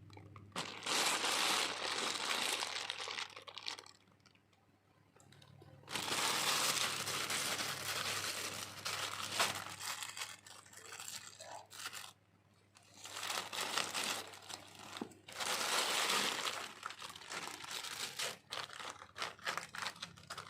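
Parcel packaging crinkling and tearing as it is opened by hand, in several long bursts with short pauses between them. A faint steady low hum runs underneath.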